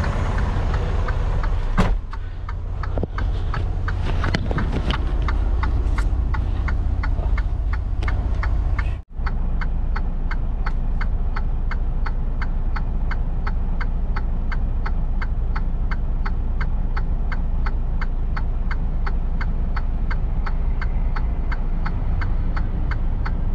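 Semi-truck engine running steadily inside the cab, with an even clicking of about two to three ticks a second, typical of the turn signal flasher. The sound cuts out for a moment about nine seconds in.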